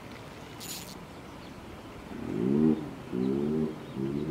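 A man's low, wordless grunts or groans, three in a row starting about two seconds in, from the strain of fighting a large fish on a bent rod. Just before them there is one short high click.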